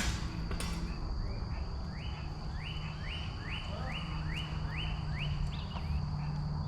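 A songbird singing a series of about eight rising whistled notes, roughly two a second, over a steady high-pitched insect drone and a low rumble.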